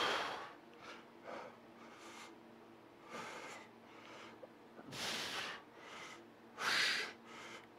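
A man breathing hard through a set of bicep curls: short forceful breaths, roughly one a second, the loudest right at the start and near the end, over a faint steady hum.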